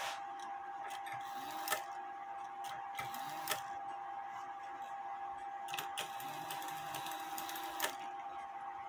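Irregular metallic clicks from the levers of a Regula 701 cuckoo clock movement being worked by hand, the sharpest about two seconds in and near the end. A steady faint whine runs underneath.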